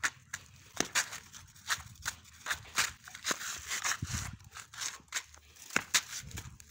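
Footsteps scuffing on a gritty concrete yard, about two to three steps a second.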